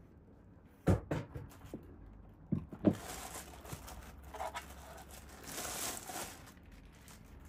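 Clear plastic bag rustling and crinkling as it is handled around a boxed unit, loudest in the second half, after a few light knocks in the first three seconds.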